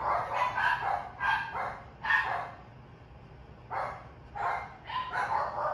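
Dog barking: a run of short, high barks, with a pause of about a second and a half midway.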